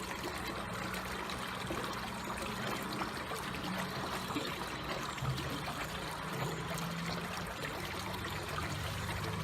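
Water flowing slowly, a steady gentle trickle of a stream.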